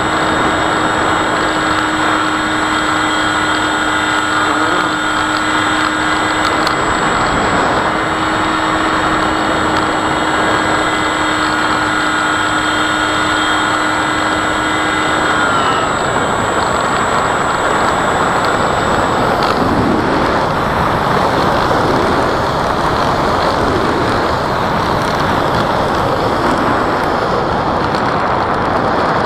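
Electric motor of a radio-controlled Cessna model plane whining steadily over loud wind rush. About halfway through the whine dips and stops, as the throttle is cut, leaving only the rush of air.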